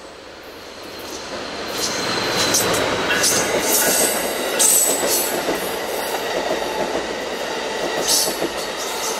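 Amtrak Pacific Surfliner passenger train led by a Siemens SC-44 Charger diesel-electric locomotive passing close by. It grows louder over the first two seconds as the locomotive goes by, then the cars roll past with a steady rumble, sharp wheel clicks now and then and thin high wheel squeals.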